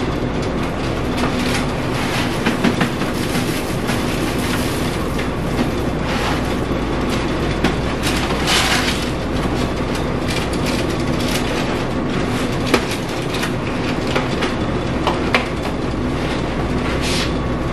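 Steady hum and rush of an air conditioner with a café's machinery behind it, with scattered light clicks and clatter from someone handling things at a work counter.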